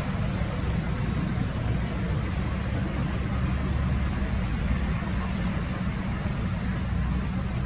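Steady outdoor background noise: a constant low rumble with a hiss above it, and no distinct events.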